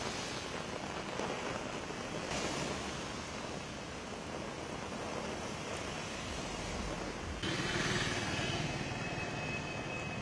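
Heavy rain falling on a wet road, a steady hiss, mixed with the wet tyre noise of passing traffic. The sound grows louder about seven and a half seconds in, and a faint thin high tone runs through the last second or so.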